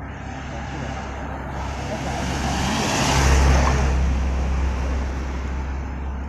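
A car driving past on the road: its tyre and engine noise grows louder, is loudest a little past the middle, then fades.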